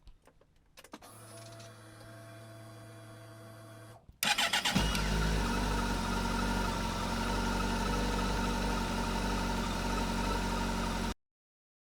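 Kawasaki GTR1400 motorcycle being started: a faint steady hum, then about four seconds in the starter cranks briefly and the inline-four engine catches and idles steadily before the sound cuts off suddenly.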